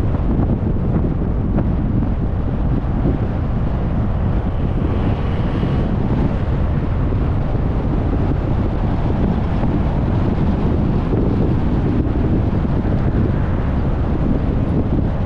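Steady low rumble of wind and road noise in a moving car, with wind blowing across the microphone.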